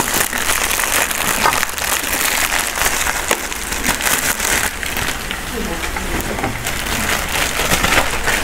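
Marinated lamb and sausages sizzling on a hot grill: a dense, steady crackle with many small pops.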